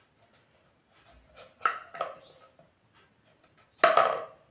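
Knife cutting through ash gourd pieces on a wooden chopping board: a few short cuts, two close together about halfway through and a louder one near the end.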